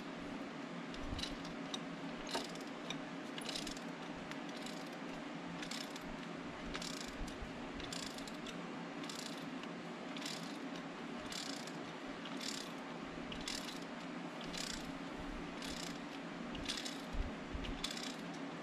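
Hand ratchet wrench clicking in short bursts about once a second on each back-swing as an exhaust manifold bolt is turned out, over a steady low hum.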